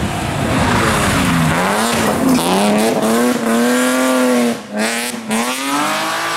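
BMW rally car accelerating hard past the spectators. Its engine note rises and drops back with each gear change, breaks off briefly about four and a half seconds in, then climbs again.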